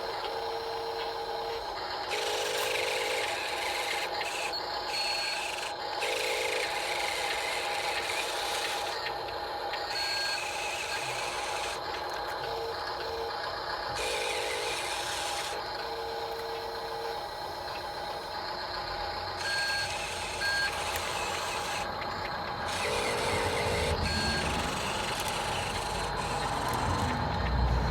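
A steady hum with short, repeated beeping tones that come and go irregularly, plus some rubbing and rumbling near the end.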